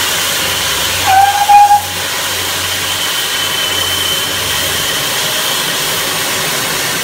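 Steam tank locomotive standing with a steady hiss of escaping steam, and a short, high whistle blast about a second in, the loudest sound.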